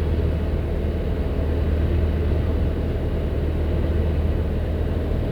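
Storm-force Nord-Ost (bora) wind blowing hard: a steady, low rumbling roar.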